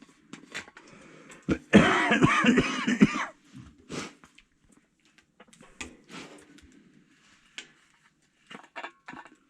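Tea poured into a cup for about a second and a half, followed by a few small clicks and knocks.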